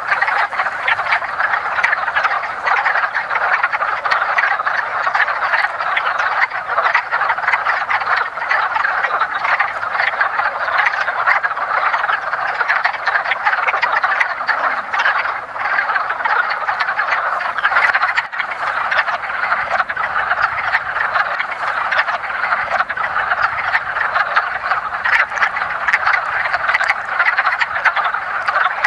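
Breeding chorus of many male wood frogs calling at once, their short, duck-like clucking calls overlapping into a steady chorus with no break. This is the early-spring mating chorus of males calling for females.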